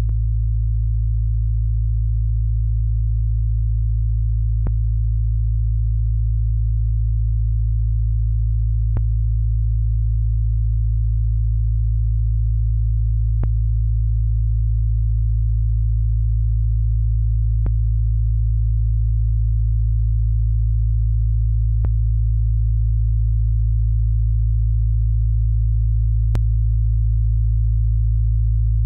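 Steady, loud low drone of deep pure tones, with a faint click about every four seconds.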